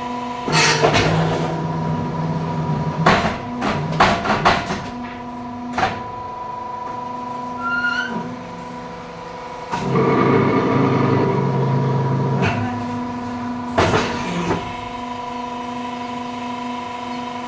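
Bottom-press fly ash brick machine running: a steady motor hum, swelling twice into a louder, deeper drone for two to three seconds as it goes through a pressing cycle. Metal clanks and knocks come in between and after, from the mould and bricks being handled.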